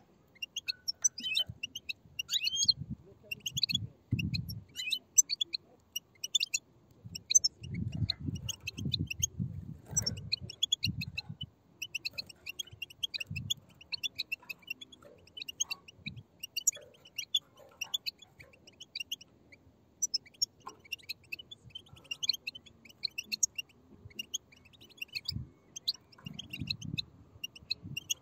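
Several European goldfinch chicks giving begging chatter: a dense, continuous stream of short, high chirps from many birds at once. Low muffled thumps come in clusters now and then underneath.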